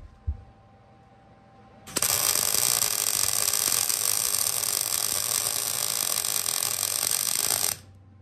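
Electric welding arc crackling steadily for about six seconds, laying a plug weld on a steel springer fork leg. It starts abruptly about two seconds in and cuts off abruptly near the end, after a couple of light knocks at the start.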